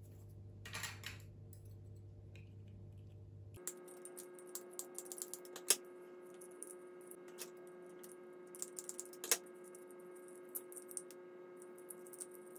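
Faint light clicks and taps of fingers handling a small plastic Dyson V15 floor-head end piece while picking tangled hair off it, with two sharper clicks in the middle, over a faint steady hum.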